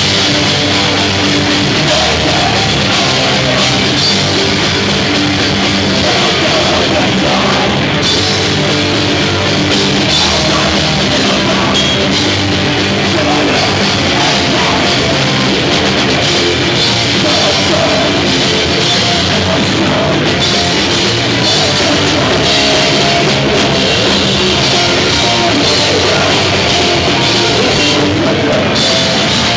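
Live rock band playing loud and without a break: a drum kit pounding along with heavy electric guitars and bass.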